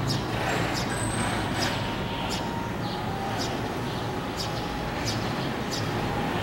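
Street ambience: the steady hum of vehicle traffic, with short high ticks now and then.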